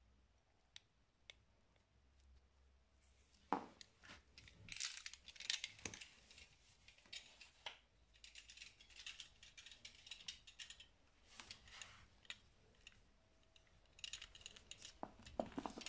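Faint handling noise: soft rustling and scattered light clicks, likely a gloved hand moving an oven's power cable.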